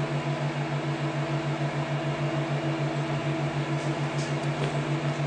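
MIG welding machine humming steadily at idle, a low electrical hum with a fast flutter. A few faint ticks come near the end.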